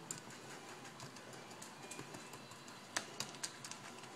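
Metal spoon packing grease-coated chicken feed down into a plastic tub: faint crunching and scraping with scattered small clicks, and one sharper click about three seconds in.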